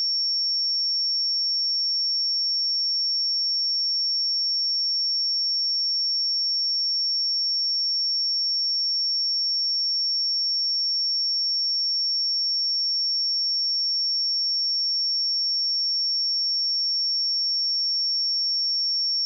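A steady 5481 Hz sine-wave test tone, one pure high-pitched note held at constant level.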